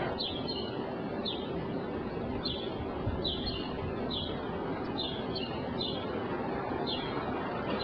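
A small bird chirping repeatedly, short high chirps coming irregularly about once a second, over a steady hum of street noise.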